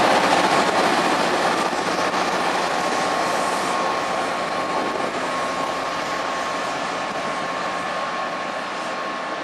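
Irish Rail 201 class diesel locomotive, with its two-stroke EMD 710 engine, under power as it draws its train away, the engine noise fading gradually as it recedes, with a steady high whine running through it.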